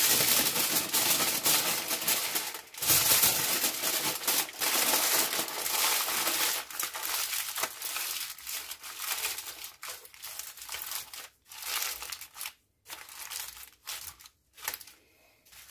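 Aluminium foil crinkling and rustling as it is gathered up and scrunched closed by hand into a parcel. It is loud and continuous for the first several seconds, then comes in shorter, sparser crinkles with brief pauses.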